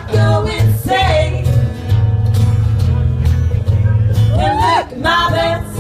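Live band playing an upbeat song with a heavy plucked bass line and guitar, with short sung phrases and a quick rising-and-falling vocal slide near the end.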